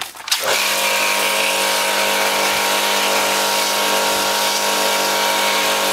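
Pressure washer starting up about half a second in, its pump motor running with a steady hum under the hiss of the water jet.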